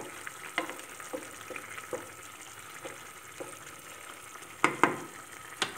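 Wooden spoon stirring a simmering stew of green beans and rice in a granite-coated pan: a steady sizzle with soft, irregular knocks of the spoon against the pan, a few louder ones near the end.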